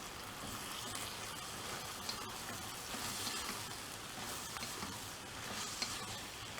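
Tempeh stir fry with bean sprouts, greens and soy sauce sizzling steadily in a hot pan, with a few light ticks as it is stirred.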